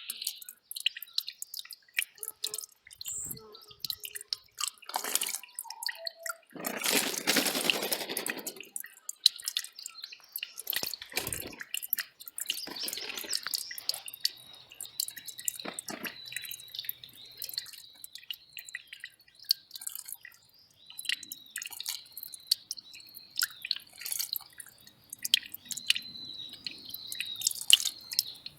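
Small mountain stream trickling and dripping over rocks in many quick little splashes, with a louder gush of water about seven seconds in. From about halfway, a thin high steady tone with repeated dips sounds over the water.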